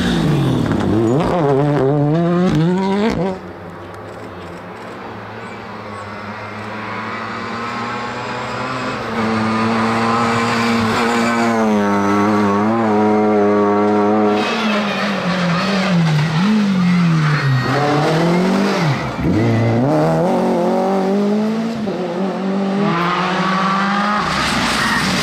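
Rally car engines driven flat out, in several short clips in a row: a Ford Fiesta rally car revving and dropping through gear changes, cut off suddenly about three seconds in. Then a classic Lada saloon approaches and holds a steady high rev for several seconds. Further stretches follow with the revs rising and falling repeatedly between gear changes, climbing again near the end.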